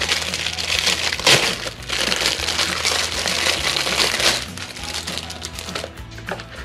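Crinkling and rustling handling noise with crackly clicks, loud for the first four seconds or so and quieter after.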